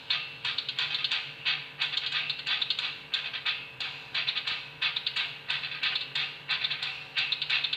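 Progressive metal track playing: dense, fast, irregular staccato hits over a steady low drone.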